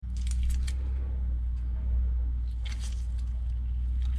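Steady low hum of the workshop background, with a few light clicks of a metal socket tool being handled and fitted together, about half a second in and again near the three-second mark.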